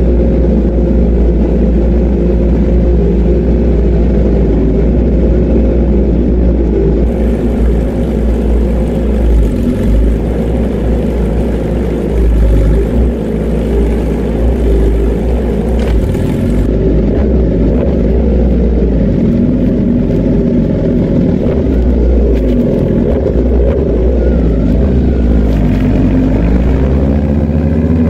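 Motorcycle engine running at a steady pitch, rising in pitch near the end as it revs up.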